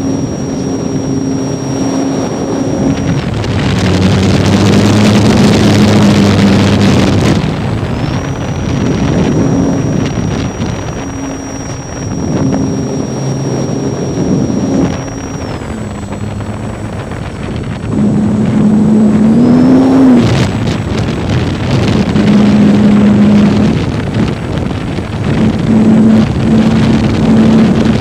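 Electric motor and propeller of a ParkZone T-28 model warbird in flight, heard from a wing-mounted camera. A steady whine changes pitch with the throttle under heavy wind rush on the microphone. The power eases back around the middle, then comes up again with a brief rising pitch about twenty seconds in.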